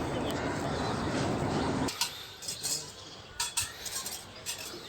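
Low rumbling, rustling noise that stops abruptly about two seconds in, then a few light clinks and knocks of small hard objects being handled.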